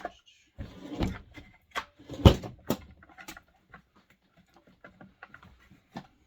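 Chainsaw parts being handled during reassembly: a string of knocks and clicks, with the loudest knock a little over two seconds in.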